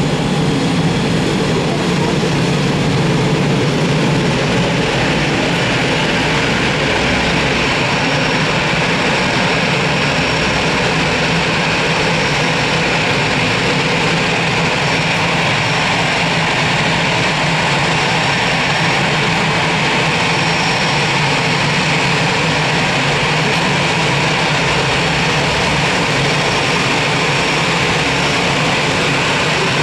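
Jet airliner engines running steadily, a continuous loud rushing noise with a low steady hum and a faint high whine.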